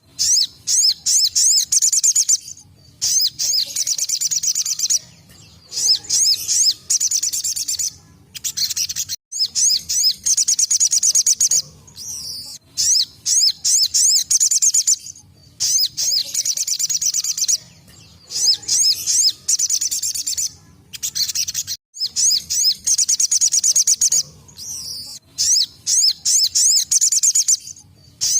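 A sogon, or sogok ontong (little spiderhunter), sings its rapid-fire 'tembakan' song: bursts of fast, high, trilling notes, each about two seconds long, repeated again and again with short pauses between them.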